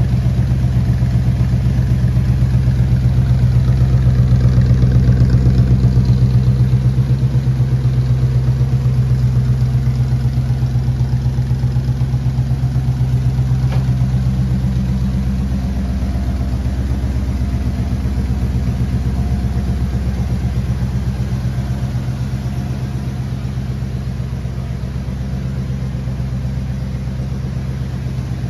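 Triumph Stag's 3.0-litre V8 idling steadily, a low even note that swells slightly about five seconds in and then eases back.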